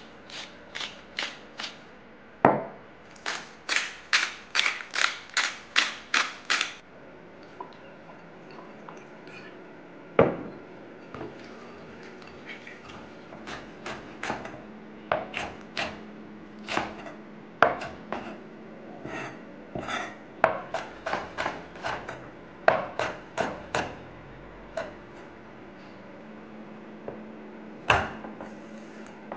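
Kitchen knife chopping on a wooden cutting board in runs of quick, even strokes, about three a second, as green chilies and garlic are cut. There are a couple of heavier single thuds of the blade on the board between the runs.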